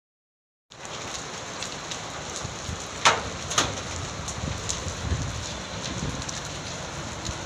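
Hailstorm: a steady hiss of hail and rain falling, with sharp clicks of hailstones striking hard surfaces, the loudest two about three seconds in, half a second apart.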